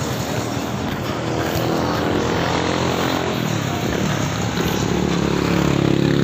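A motor vehicle engine running nearby, its pitch shifting up and down in the middle, then growing louder and steadier near the end.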